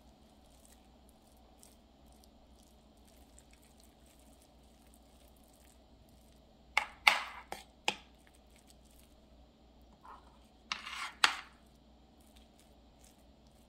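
A metal spoon scraping and clinking against a glass baking dish while spreading thick, moist cornbread dressing. The sound comes in two short clusters of strokes, about halfway through and again near the end, with little in between.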